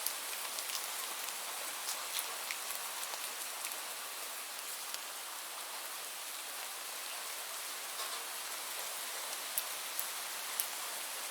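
Steady rainfall: an even hiss of rain with scattered individual drops ticking sharply on a surface.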